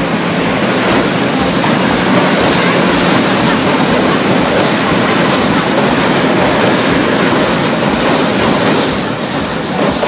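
Pingxi Line diesel railcar train passing close by: a loud, steady rush of rail noise that falls away right at the end.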